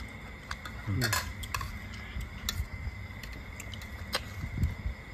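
Spoon and ladle clinking now and then against a steel serving tray and ceramic plates, a few separate light clicks spread over several seconds.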